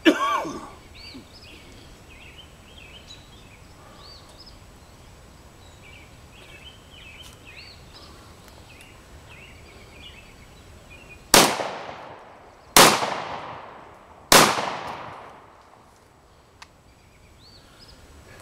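Three shots from a Weatherby SA-08 12-gauge semi-automatic shotgun, about a second and a half apart, each sharp crack followed by a long fading echo. Before them, birds chirp, and a brief loud cough comes right at the start.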